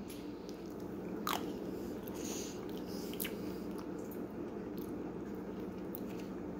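A person eating a mouthful of strawberry jam off a spork: quiet chewing and mouth sounds, with a few small clicks and smacks. A steady low hum runs underneath.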